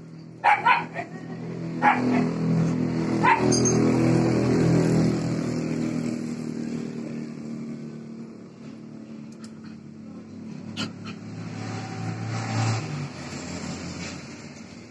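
A dog barking in a few short, sharp barks, two close together about half a second in, then one near 2 s and one near 3.5 s, over the steady hum of a motor vehicle's engine that swells and fades.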